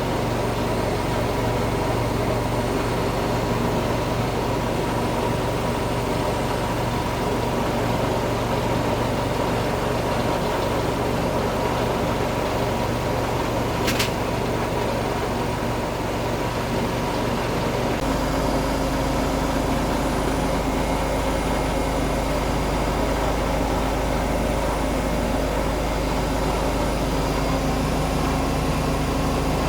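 Zanussi ZE 16 washing machine in its final spin, its drum and motor running with a steady hum. There is a single sharp tick about fourteen seconds in, and the hum abruptly changes pitch about eighteen seconds in as the spin speed changes.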